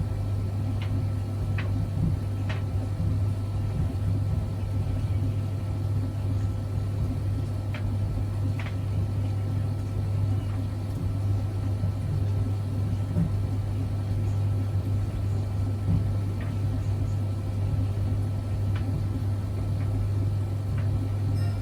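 Zanussi Jetsystem IZ16S washing machine running a wash cycle: a steady low hum with a few faint clicks here and there.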